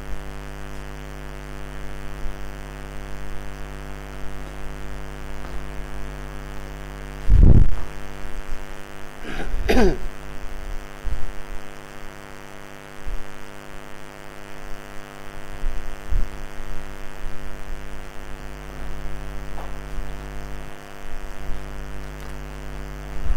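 Steady electrical mains hum, a buzz with many evenly spaced overtones. There is a low thump about seven seconds in and a short sound gliding in pitch a couple of seconds later.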